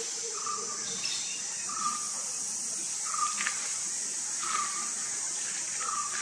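A steady, high-pitched insect chorus of crickets or cicadas, with a short, slightly falling call repeated five times, about every second and a half.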